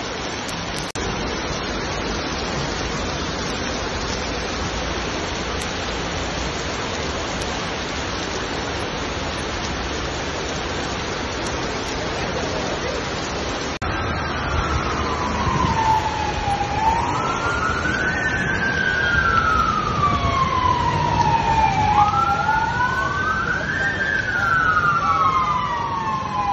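Torrential rain pouring onto a flooded street. About halfway through, a fire engine's siren starts wailing over the rain, slowly rising and falling in pitch every few seconds.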